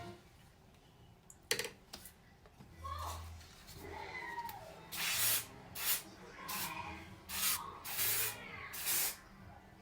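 Short hissing bursts of hair spray, about six in quick succession over the second half, after a single click about a second and a half in.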